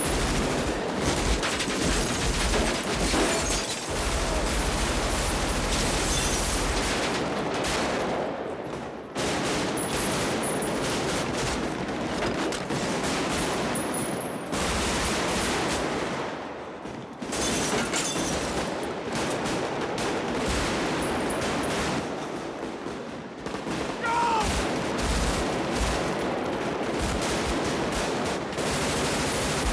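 Heavy automatic rifle fire in long, overlapping bursts from several guns, with short lulls a few times.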